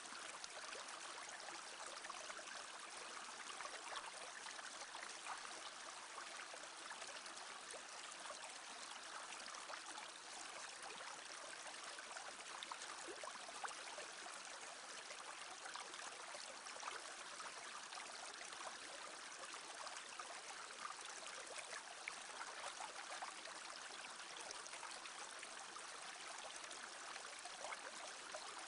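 Small brook babbling: a steady, even rush of running water with fine trickling flickers.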